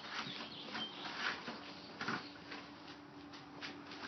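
Short, irregular scraping and clicking strokes, about nine in four seconds, of a tool stirring and scraping tile grout in a mixing container.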